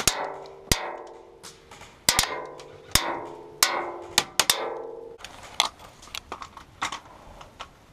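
Incoming airsoft BBs striking the wooden and sheet-metal cover around the player: a rapid, irregular string of sharp knocks, several of them ringing briefly, thinning out over the last few seconds.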